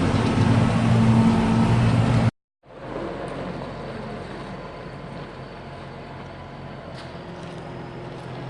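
Tractor engine running steadily, loud and close. About two seconds in it cuts off abruptly, and a quieter, steady machinery drone follows.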